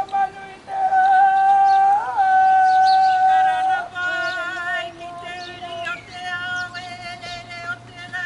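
Women's karanga, the high ceremonial calls of a Māori welcome: one long-held, high note, then a second wavering voice overlapping it from about four seconds in, with a falling call near six seconds.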